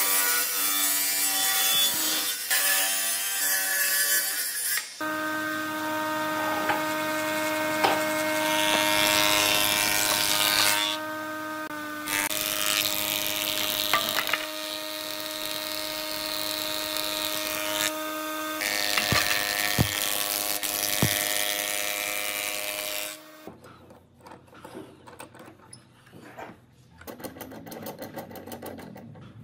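Woodworking machines milling boards: a table saw and a thickness planer running with a steady motor hum and the rushing noise of blades cutting wood. Near the end the machine noise stops, leaving quieter handwork sounds with a quick run of clicks.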